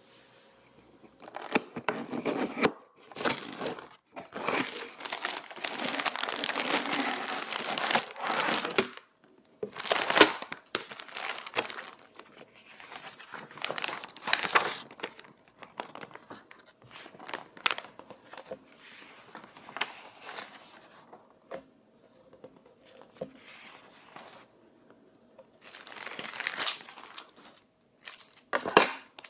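Unboxing handling: a cardboard box and paper booklet handled, and sealed plastic bags of LEGO bricks crinkling and rustling, in irregular bursts with short pauses.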